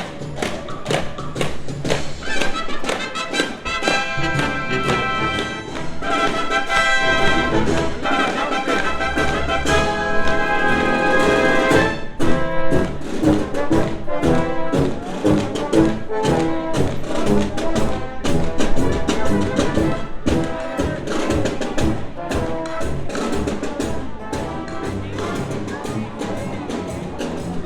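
Brass-led orchestral music with a steady beat.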